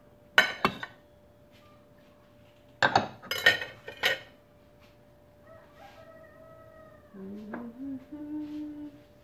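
Kitchen utensils and dishes clattering in two short bursts of sharp clinks, about half a second in and again around three to four seconds in. Near the end, a woman hums a few notes.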